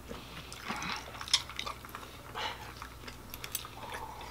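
Eating sounds: faint chewing and scattered light clicks and scrapes of a fork and knife on a plate, with a sip from a cup near the end.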